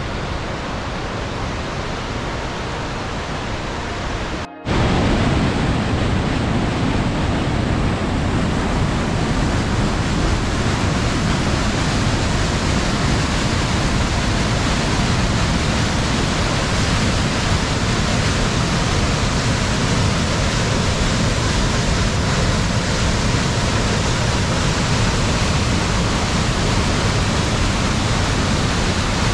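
Waterfall and rushing mountain creek: a steady rush of white water. It cuts out for a moment about four and a half seconds in, then comes back louder.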